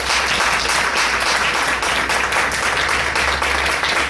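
Audience applauding: a dense, steady round of many people clapping.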